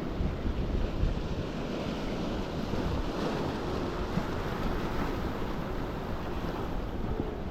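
Sea surf washing on a rocky shore, with wind buffeting the microphone.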